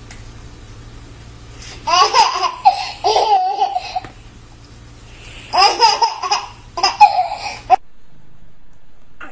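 A small child laughing in two bouts of high-pitched laughter, each about two seconds long, with a pause between them. The laughter cuts off abruptly shortly before the end.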